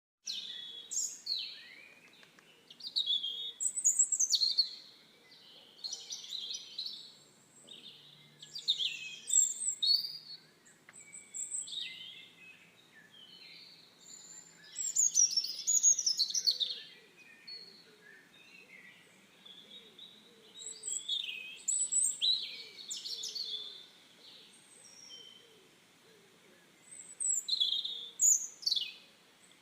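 A songbird singing: phrases of quick chirps and sweeping whistles, repeated in bouts every few seconds with short pauses between.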